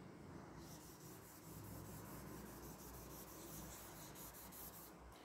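Faint, quick, repeated rubbing of a cotton-wool wad on drawing paper, working graphite powder into the paper; it starts just after the beginning and stops near the end.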